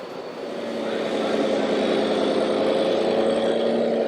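Radio-controlled model vehicle running with a steady mechanical drone, growing louder over the first second and then holding.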